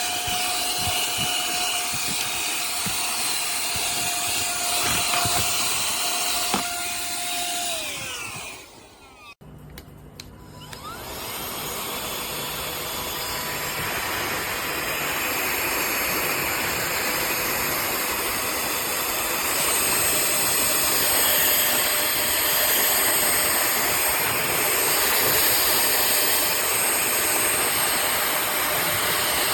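Cordless handheld vacuum cleaner running with a steady whine, winding down and stopping about eight seconds in. It is then switched back on and spins up to a steady run.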